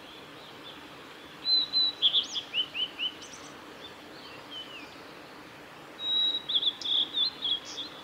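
Male blue-and-white flycatcher singing: two song phrases, each opening with a high held note and running into a quick string of down-slurred whistles, the first about a second and a half in and the second about six seconds in.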